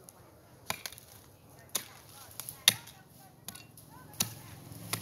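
Hoe blade chopping into dry earth, six sharp strikes roughly a second apart. A low hum comes up near the end.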